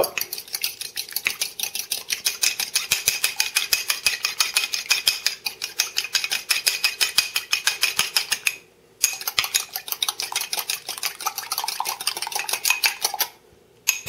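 Metal fork beating eggs in a ceramic pot, clicking against the sides in rapid, even strokes. It pauses briefly a little past the middle and stops shortly before the end.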